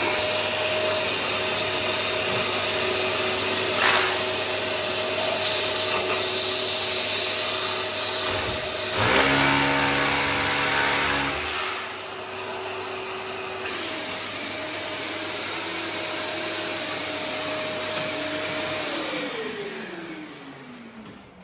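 Electric drill boring an 8 mm hole into the wall with a vacuum dust extractor running at the bit, a steady motor whine over rushing air. About nine seconds in there is a rougher, lower stretch of a couple of seconds, and near the end the motors wind down with a falling whine.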